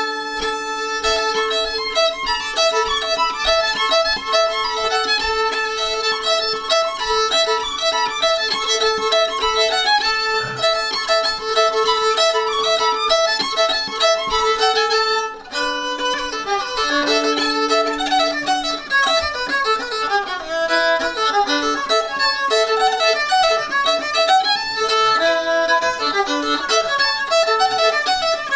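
Fiddle playing a lively tune, with a lower note held as a drone under a quick melody. About fifteen seconds in there is a brief break, and a new part starts with running, falling phrases.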